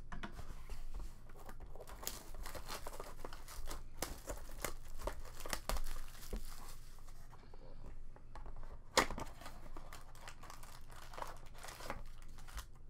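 Cellophane shrink wrap being torn and crumpled off a sealed box of trading cards: steady crinkling and crackling, with one sharp snap about nine seconds in.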